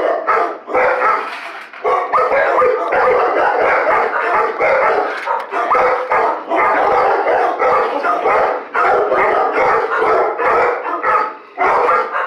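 Many dogs barking at once in animal shelter kennels, a steady din of overlapping barks with only brief lulls.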